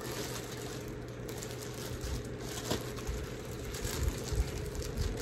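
Clear plastic bag rustling and crinkling irregularly as it is handled and opened, over a steady low hum.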